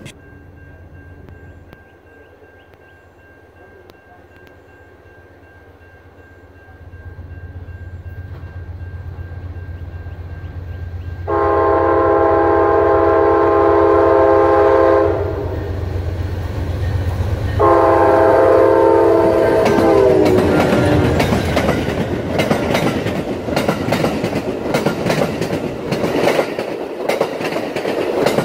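Amtrak Auto Train passing. The diesel locomotive rumble builds as it approaches. Then come two horn blasts, a long one and a shorter one whose pitch drops at the end as the locomotive goes by. After that, the Superliner bilevel cars' wheels clatter over the rails.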